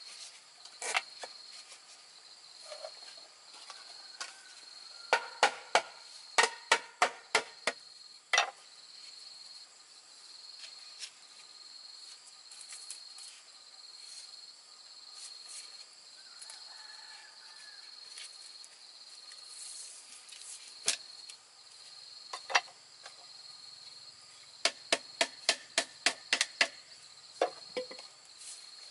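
Steady high-pitched insect drone throughout, broken by clusters of sharp, hard knocks from green bamboo pieces being tapped and fitted together into a chair frame. The knocks come in a quick run early on and again near the end, with a couple of single ones between.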